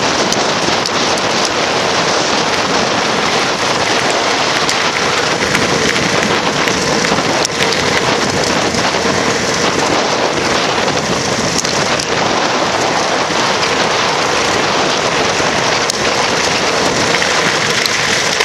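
Loud, steady rushing hiss of a bicycle speeding downhill without braking: wind over the microphone and tyres running on rough tarmac.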